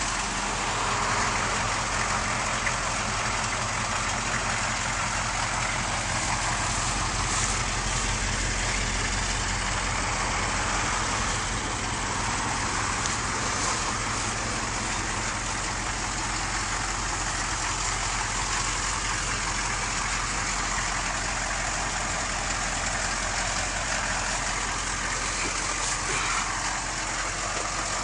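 Chevrolet K5 Blazer's 6.2-litre diesel V8 running steadily.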